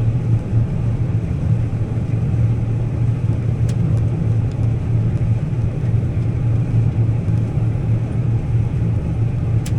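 John Deere combine running steadily while harvesting soybeans, heard from inside the cab: an even low drone of engine and threshing, with two light clicks.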